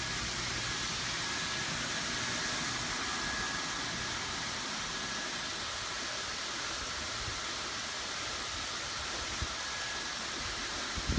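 Blower fan of a Gemmy Snoopy Sno-Machine Christmas inflatable running, a steady rush of air with a faint high steady tone.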